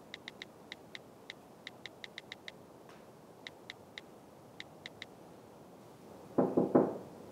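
Phone keyboard clicks: short, sharp ticks at one pitch, coming in quick irregular runs as a message is typed on the phone. Near the end, three loud knocks on a glass door follow in quick succession.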